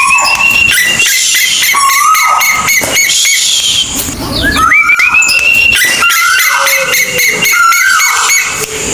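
Kolik tuwu bird calling: a steady series of whistled notes, about one a second, each sliding up to a held pitch and then dropping away.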